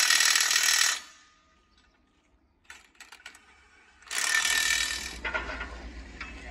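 Milwaukee cordless impact wrench hammering wheel nuts tight on a steel roller wheel hub. One run stops about a second in; a few light clicks follow, then a second, roughly one-second run starts about four seconds in.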